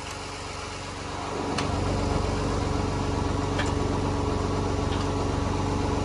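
Tractor engine running steadily at low speed. It grows louder about one and a half seconds in, with a few faint clicks over it.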